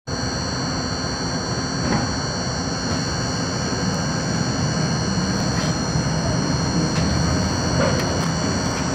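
R42 subway train running through an underground station, heard from inside the car: a steady low rumble of wheels and running gear with a constant high whine above it.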